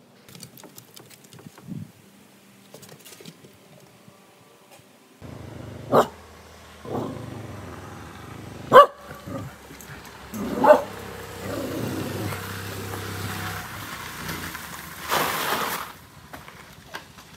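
Dog barking several times, sharp and loud, over a steady low hum that starts about five seconds in.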